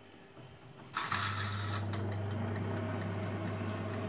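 A mini oven's control knob is turned with a sharp click and rasp about a second in, and the oven switches on with a steady electrical hum. Its mechanical timer then ticks steadily.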